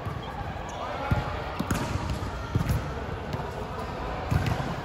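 A ball bouncing on a hard court floor, a few irregularly spaced thuds, with players' and spectators' voices around it.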